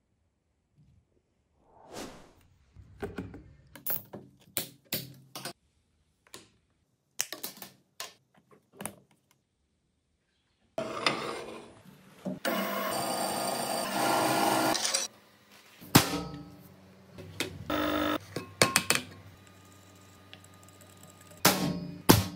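Workshop sounds: light clicks and knocks of plastic fittings being handled and fitted together, then a metal-cutting band saw running for about four seconds. More knocks follow, and near the end a couple of sharp hammer blows on a center punch.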